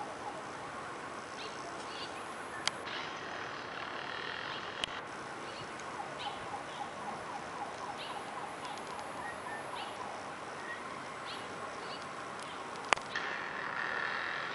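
Steady outdoor background noise during snowfall, with scattered faint short chirps and a few sharp clicks, the sharpest near the end.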